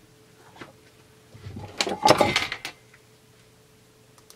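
Chainsaw centrifugal clutch being worked by hand: light clicks and a brief scraping clatter of its metal shoes and spring around the middle, over a faint steady hum.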